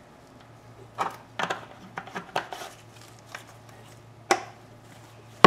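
Plastic motorcycle coolant reservoir being handled and set against a workbench: scattered light knocks and clicks, with a sharper, louder knock near the end, over a faint steady low hum.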